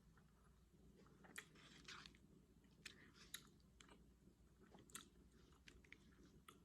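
Faint close-up chewing of fettuccine alfredo, with several sharp clicks at uneven intervals over a low steady hum.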